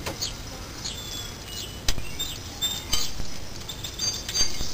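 A few sharp metallic clicks and clinks from hands and tools working at the rear brake during brake bleeding, with small birds chirping over and over in the background.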